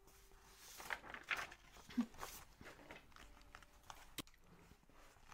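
Faint rustling and handling noises, with a few light knocks about two and four seconds in, as hand puppets are pulled down and swapped behind a wooden puppet-stage ledge.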